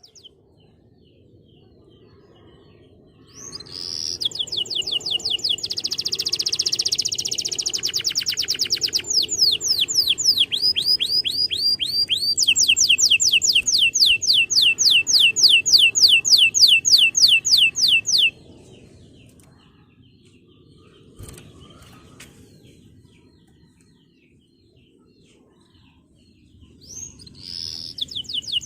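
Male domestic canary singing in long rapid trills: phrases of fast repeated high notes that change speed from one phrase to the next. A quieter stretch of faint chirps follows, and the trilling starts again near the end.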